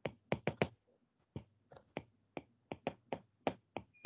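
Stylus tapping and clicking on a tablet screen during handwriting: a string of short, sharp, irregular taps, about fifteen in four seconds. A brief high tone sounds just before the end.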